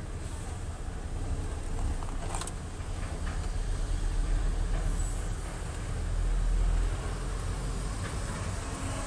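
Low steady rumble, louder about six to seven seconds in, with a sharp plastic click about two and a half seconds in as the under-dash fuse box is handled.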